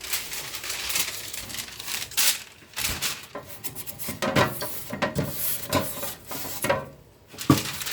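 Spatula scraping and rubbing in a mixing bowl, with a few knocks of utensils against it.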